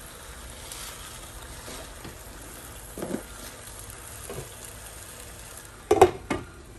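Fish and potato curry sizzling steadily in a frying pan under a heap of fresh spinach leaves, with a couple of soft knocks and then two sharp knocks near the end.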